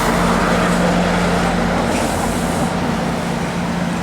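Heavy vehicle noise: a steady, low diesel-engine drone over a continuous rushing noise.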